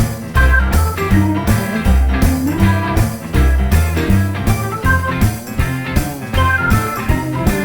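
Background music: a rock track with guitar over a steady drum beat.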